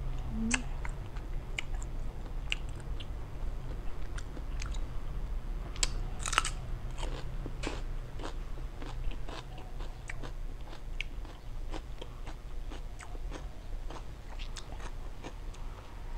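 Close-miked eating of large shrimp in lime-chili dressing: chewing and crunching with many short wet mouth clicks, a louder cluster about six seconds in. A steady low hum runs underneath.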